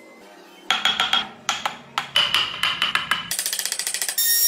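A run of sharp knocks on wood, then a handheld rotary tool grinding into the wood with a steady high whine in the last second or so.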